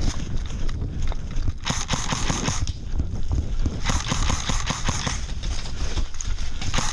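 Airsoft guns firing rapid bursts, two stretches of fast clicking, over steady thumping and rustling of movement on the helmet camera.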